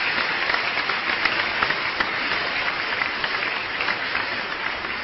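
Crowd applause: many hands clapping in a dense patter, steady at first and then slowly fading.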